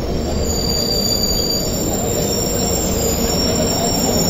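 Express passenger train running on the rails: a steady, loud rumble of wheels on track with thin, high-pitched squeal tones held steady above it.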